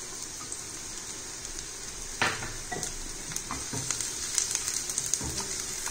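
Chopped garlic sizzling in hot oil in a stainless steel frying pan. About two seconds in a silicone spatula starts stirring it, scraping and tapping the pan now and then.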